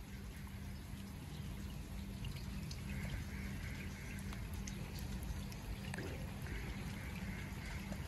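Steady rain falling on a swimming pool and wet paving, with scattered drops ticking close by.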